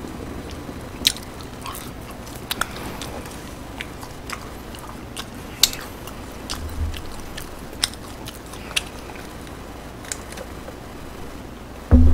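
Close-miked chewing of fast food, with scattered sharp mouth clicks and smacks. A loud bump near the end.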